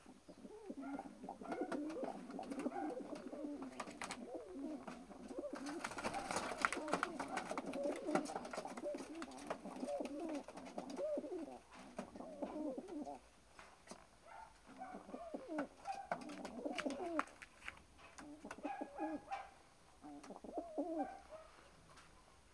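Several pigeons cooing over and across one another, calls coming in quick repeated runs, with a brief patch of sharp clicks and scuffs among them a third of the way in.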